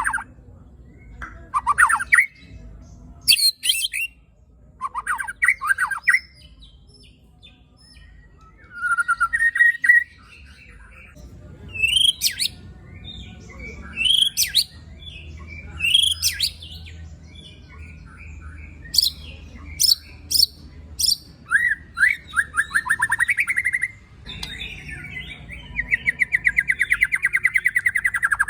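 White-rumped shama giving harsh calls, 'tembakan and besetan': short, sharp upward-sweeping notes and rasping rattles, with a long buzzy rattle over the last few seconds. These are the coarse, aggressive calls used to provoke other shamas.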